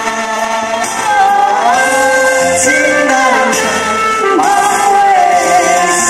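A man and a woman singing a duet into handheld microphones over backing music, amplified through a PA. The sung lines glide up and down in pitch over steady held backing notes.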